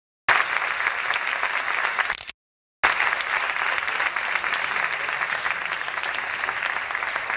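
Audience applauding steadily, a dense patter of many hands clapping. The sound cuts out completely twice: for a moment at the very start and again for about half a second around two and a half seconds in.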